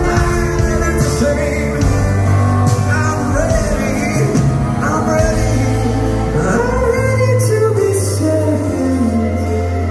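Live band music: a man singing a slow pop-rock song over grand piano and drums, with cymbal strokes and a sustained bass line.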